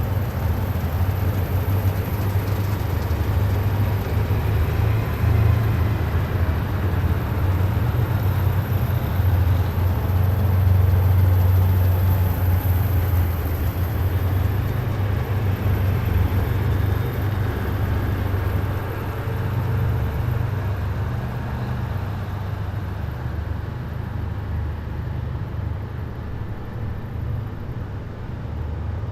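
Column of heavy military vehicles driving past, a deep low engine rumble with road noise that builds to its loudest about halfway through and eases off near the end.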